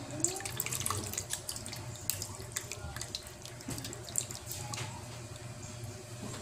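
Wooden spoon stirring pork and broth in a stainless pot as pork blood is mixed in, the liquid sloshing with many small splashes and clicks.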